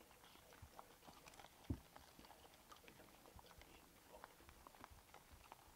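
Faint chewing and crunching from feral hogs feeding at a feeder: scattered small clicks, with one louder low thump about a second and a half in.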